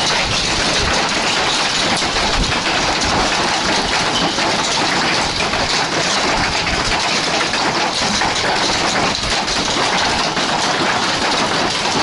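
Heavy hail coming down with rain: a loud, steady, dense clatter of countless hailstones striking.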